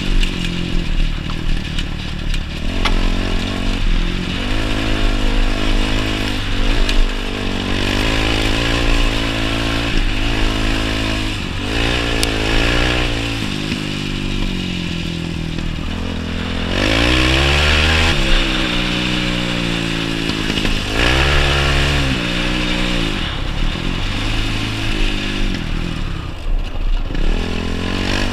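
Yamaha YFZ450 quad's single-cylinder four-stroke engine under hard riding, revving up again and again with rising pitch and dropping back as it shifts or backs off the throttle.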